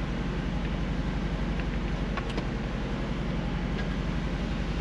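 Mazda Miata's engine idling steadily, heard from inside the cabin. A few faint clicks come from the gear lever as it is worked through the gears.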